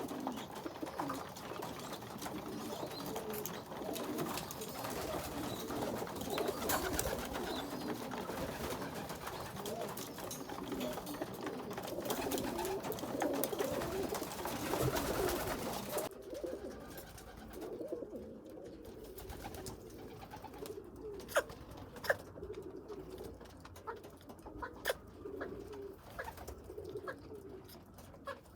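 Pigeons cooing, a low warbling murmur that runs on throughout. About halfway through, the background hiss drops away suddenly, and a few sharp clicks follow.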